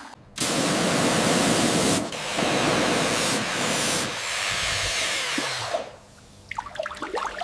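Water sprayed hard onto a rusty metal padlock in three long hissing bursts, followed near the end by quieter crackly scratching and small clicks.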